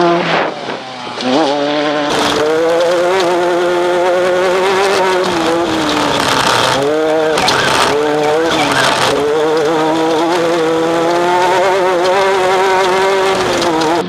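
Off-road race buggy engine at high revs. It passes close, with the pitch dropping, then is heard from inside the car from about two seconds in, the revs rising and falling with the throttle over rough ground.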